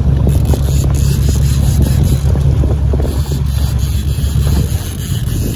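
Boat engine running with a steady low hum, with wind buffeting the microphone; the hum drops away about four and a half seconds in.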